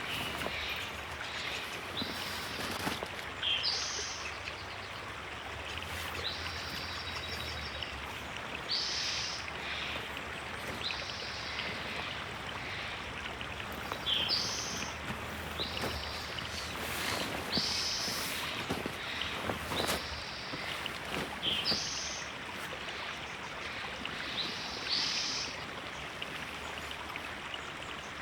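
River water flowing steadily, with a bird's short, high chirps repeating every second or two over it.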